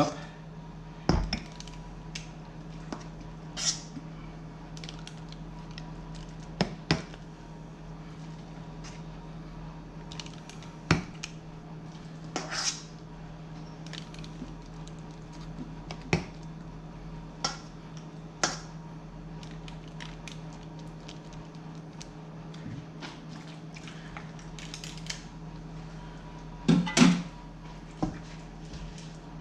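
Metal ice cream scoop knocking and scraping against a stainless steel mixing bowl and ceramic ramekins as a soaked bread mixture is scooped out, in short irregular clinks every second or two, with a louder clatter near the end. A steady low hum runs underneath.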